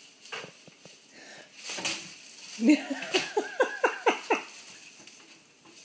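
A person laughing in a quick run of short falling 'ha' bursts, starting about two and a half seconds in and lasting about two seconds, after a brief rustle and knock.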